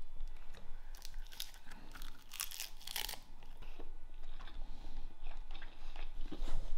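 Crisp roasted nori seaweed crackling and tearing as it is bitten and chewed around a mouthful of rice. The crunching is densest in the first three seconds, then thins to occasional small crackles.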